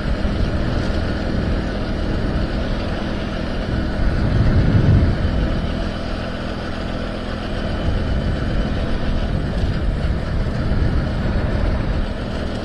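Motorcycle engine running steadily while riding along a road, under a dense low rumble of wind and road noise, with a louder low surge about five seconds in.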